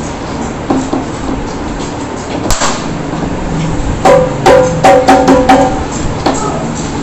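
A dhol drumhead struck by hand. There is one knock about two and a half seconds in, then a quick run of about six strikes, each ringing with a clear pitch, as the drum is tested for tuning.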